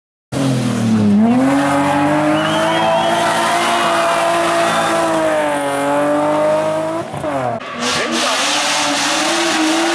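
Hill-climb race car engine running hard at high revs, cutting in suddenly. Its pitch dips and climbs back about a second in, then holds fairly steady. Around seven seconds in the note breaks off briefly and drops in loudness, then picks up again.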